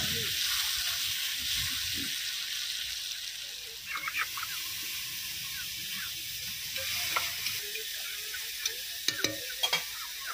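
Potato chunks frying in hot oil in a kadai: a steady sizzle, with a metal spatula stirring them. A few light clicks and taps come later on.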